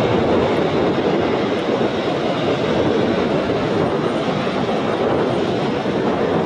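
Airliner's jet engines running loud and steady as the plane passes close, a rushing roar, starting abruptly.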